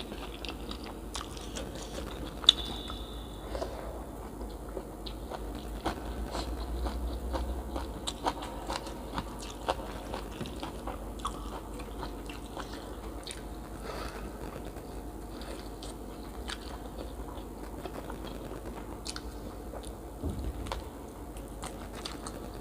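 Close-up mukbang eating sounds: a person biting and chewing food with crisp crunches and many small wet clicks and crackles. One sharper click comes about two and a half seconds in. A steady low hum runs underneath.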